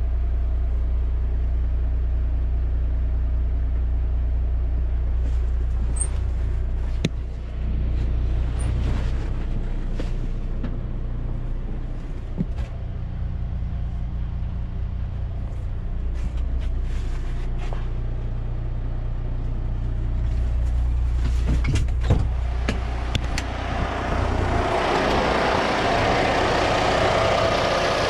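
Heavy diesel truck engine idling, a steady low hum heard from inside the cab, with scattered clicks and knocks. About 24 seconds in it grows louder and fuller as the idling engine is heard in the open with the hood raised.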